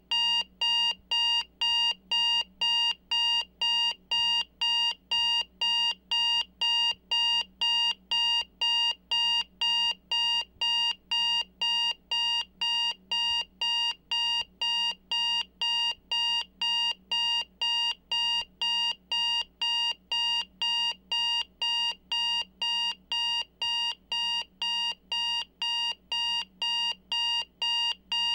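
Digital alarm clock buzzer going off: a steady, unbroken run of high-pitched electronic beeps, about two a second with only short gaps between them.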